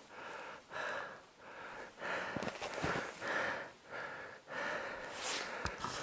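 Footsteps crunching through deep snow at a walking pace, with a few short knocks.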